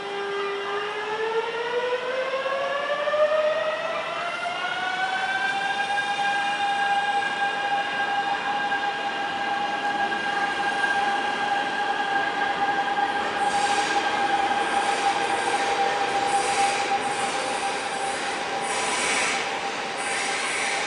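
NSB electric passenger train pulling out, its traction motors whining in a rising pitch that levels off after about six seconds and then holds steady. From about halfway, a run of sharp clacks joins in as the wheels pass over rail joints.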